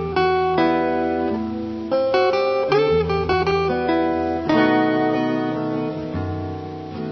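Acoustic guitar music: plucked notes and chords over low bass notes, with a quick run of short notes about three seconds in.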